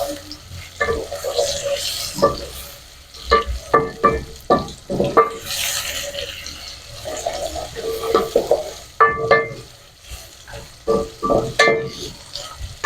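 Carrots and onions frying in oil being stirred with a spoon: repeated scrapes and knocks of the spoon against the pot over a sizzle.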